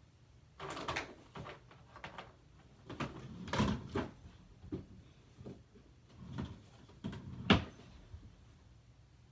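Household things being rummaged through and handled: a series of irregular clatters, rustles and knocks, with the sharpest knock about seven and a half seconds in.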